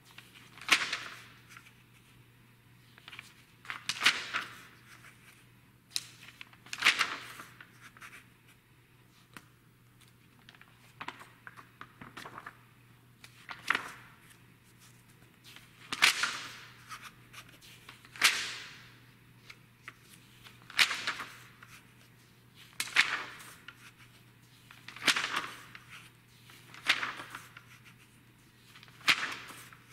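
Glossy magazine pages being turned by hand one after another, each turn a short crisp paper flap, about a dozen of them every two to three seconds. A faint steady low hum runs underneath.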